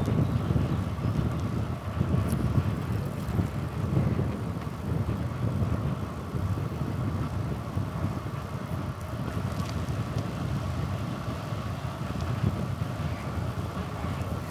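Low, gusting rumble of riding a bicycle: wind buffeting the microphone over tyre and road noise, with a faint steady hum throughout.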